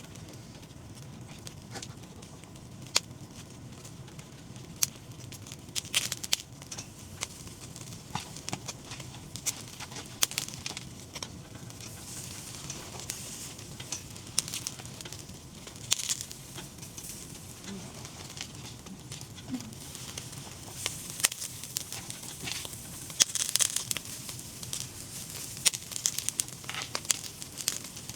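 Irregular crackling with sharp pops over a low steady hiss, the pops coming thicker in the last several seconds, as from meat cooking over a fire.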